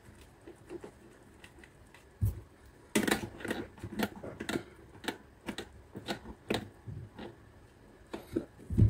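Needle-nose pliers working a small metal nut tight on the speed-control shaft fitted in a plastic blender base: a busy run of light metallic clicks, ticks and scrapes, with a dull knock a couple of seconds in and another near the end.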